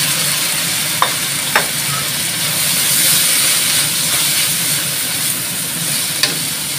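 Mixed vegetables sizzling in hot oil in a stainless steel wok as they are stir-fried with a wooden spatula. Three short knocks come about a second in, half a second later, and near the end.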